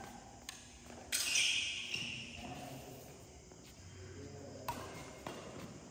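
Badminton rackets striking the shuttlecock in a rally: a sharp hit with a brief ringing about a second in, then two more hits near the end, echoing in a large hall.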